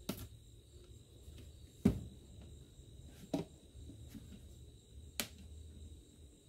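A few sharp clicks and taps from a small tool prying at the tight-fitting plastic case of a Vaultek LifePod 2.0 safe. The loudest click comes about two seconds in.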